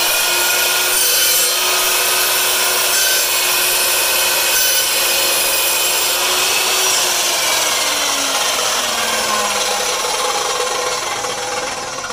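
Evolution EVOSAW380 dry-cut chop saw, with a 15-amp geared motor and a steel-cutting blade, running at full speed and cutting through a wooden 2x4 block with nails driven in it. About seven seconds in the motor is let go and winds down, its whine falling in pitch and slowly fading.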